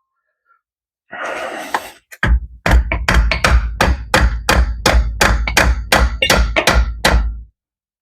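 Hammer blows on a piece of 2-inch ABS pipe used as a seal driver, pressing a new axle seal into a differential housing: a short scrape, then a rapid, even run of sharp thuds, about three a second, that stops near the end.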